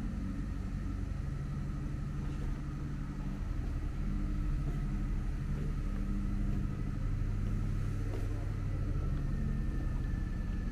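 A steady, low mechanical rumble, like machinery or an engine running, with a faint steady high whine above it; it grows slightly louder about four seconds in.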